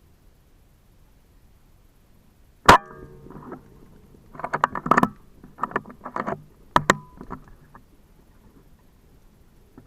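Two sharp cracks from a custom PCP air rifle, the first about three seconds in and the loudest, the second about four seconds later, with a run of irregular clattering and rustling between them.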